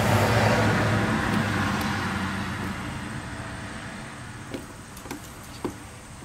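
A vehicle's engine rumble, steady at first and fading away over a few seconds, then a few light clicks from work on the carburetor float bowls.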